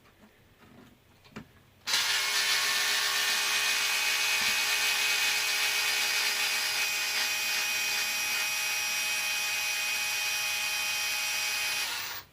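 A small power driver runs steadily at one pitch for about ten seconds, driving out a screw. It starts about two seconds in and stops abruptly near the end.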